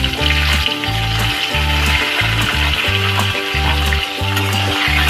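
Okra and potato sticks sizzling as they fry in hot oil in a wok, a steady hiss that grows stronger near the end. Background music with a repeating bass beat plays throughout.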